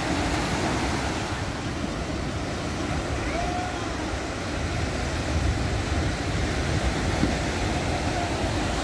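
Small ocean waves breaking and washing up a sandy beach in a steady surf wash, with a low rumble of wind on the microphone.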